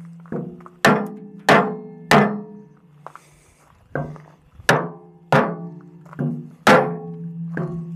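About a dozen sledgehammer blows on a wooden block held against a steel loader-bucket tooth bar, tapping the bar down to seat it fully on the bucket. Each blow is a sharp knock that leaves the steel ringing briefly, coming roughly one or two a second with a short pause about three seconds in.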